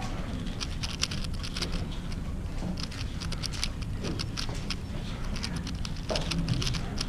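Fast, irregular plastic clicking of an X-Man Galaxy megaminx being turned during a speed solve, over a steady low background rumble.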